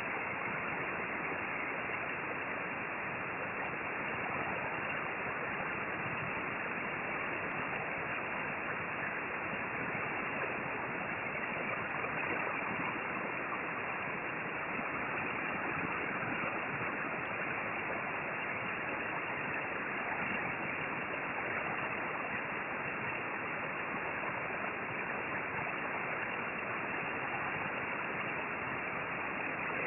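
Steady hiss of a hot-air rework station blowing air, its airflow set a little high.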